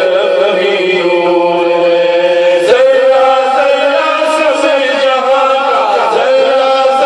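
A man singing a naat, an Urdu devotional poem, solo and unaccompanied into a handheld microphone. He holds long, ornamented notes and steps up to a higher note about three seconds in.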